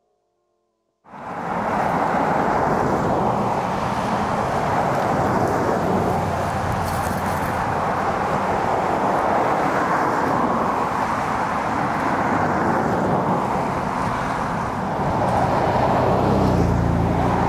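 Steady noise of road traffic, starting abruptly about a second in, with a vehicle going by louder near the end.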